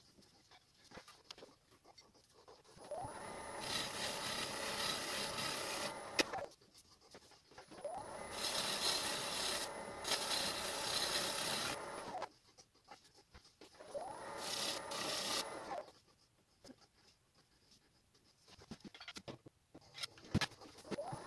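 Bowl gouge cutting a spinning fruit-wood bowl on a wood lathe: a hissing, scraping shaving sound in three spells of a few seconds each, with quiet between them. A sharp click about six seconds in.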